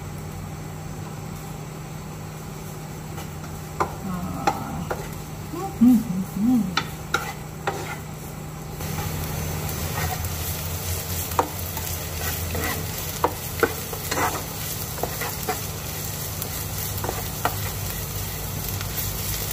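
Shredded ginger and spring onion sizzling in hot oil in a stone-coated non-stick wok, stirred and scraped with a plastic spatula, with scattered clacks of the spatula against the pan. The sizzle grows louder about halfway through.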